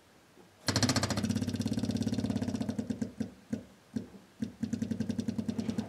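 Newly fitted SU solid-state electric fuel pump on an MGB switching on under a second in and ticking rapidly as it pumps fuel into a line that had been sucked partly empty, pushing out the air. Around the middle the ticking slows to a few separate clicks as pressure builds, then speeds up again.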